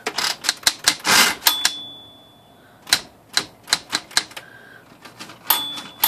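Smith-Corona Galaxie Twelve manual typewriter mechanism clacking: a fast run of escapement and carriage clicks with a dense rattle just after a second in, the carriage bell dinging about a second and a half in and again near the end, and a few single clicks between. The carriage is being worked to check a fault in which it won't latch and runs to one side.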